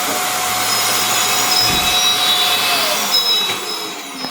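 Vax vacuum cleaner running with a steady rush of suction. In the second half it is switched off and its motor whine falls in pitch as it winds down.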